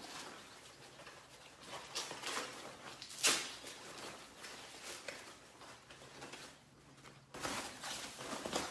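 Handling noises from unpacking a tube bender's parts: rustling packaging with scattered light clicks and knocks, one sharp click about three seconds in, and a longer stretch of rustling near the end.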